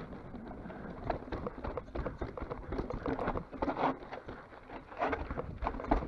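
Mountain bike rolling fast over rough, stony trail: a dense, irregular clatter of tyres on loose rock and the bike's parts rattling, over a low wind rumble on the microphone.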